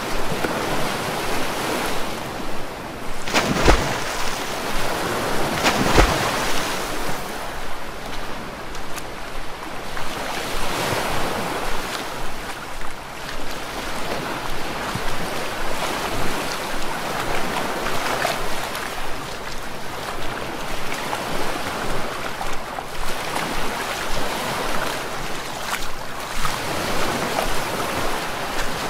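Water splashing and churning as a European badger swims and wades through a river, swelling and dipping every second or so. Two sharp hits stand out about four and six seconds in.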